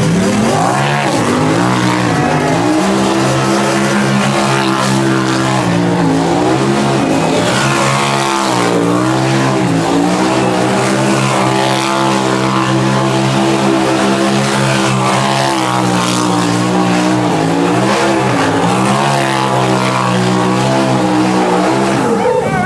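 A vehicle engine held at high revs for a long stretch, its pitch dipping briefly and climbing back several times, as in a sideshow donut or slide.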